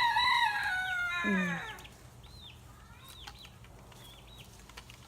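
A rooster crowing once, a single call of about two seconds that drops in pitch at the end, followed by short high chirps.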